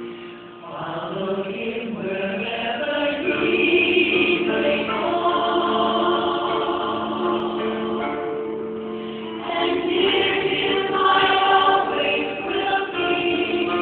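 A group of people singing together, choir-style, in long held notes, with short breaks between phrases about half a second in and again near nine and a half seconds.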